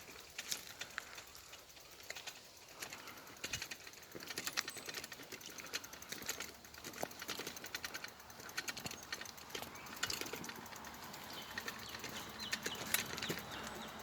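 Footsteps on a trail: irregular clicks and crunches of steps on the path surface.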